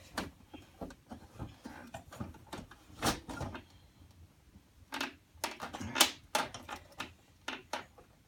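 Irregular clicks, knocks and clatter of hands handling the camera and the Macintosh II's plastic case as it is set down and opened up, with a few louder knocks about three seconds in and again around five to six seconds in.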